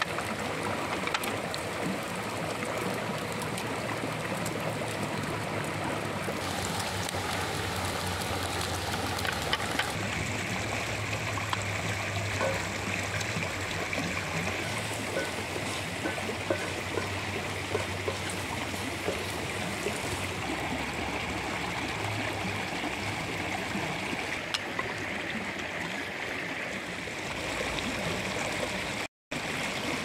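A river rushing steadily, with occasional short clicks of a wooden spatula against the frying pan.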